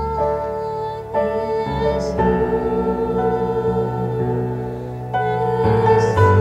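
Electronic keyboard playing slow, sustained worship chords over deep bass notes, the chords changing every second or so.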